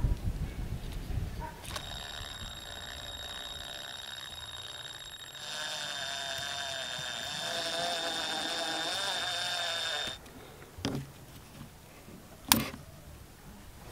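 Cordless drill motor running at slow speed as it winds enamelled copper wire onto a steel rod held in its chuck: a steady high whine that gets louder about five seconds in and stops about ten seconds in. Near the end, a small click and then a sharp snip as tin snips cut the copper wire.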